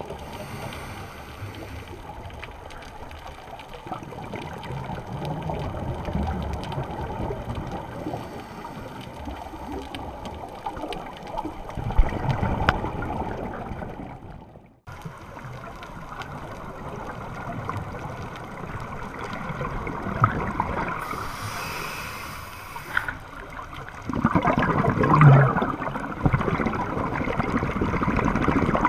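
Muffled underwater sound of scuba divers' exhaled bubbles gurgling, with a brief dropout about halfway through and a louder burst of bubbling near the end.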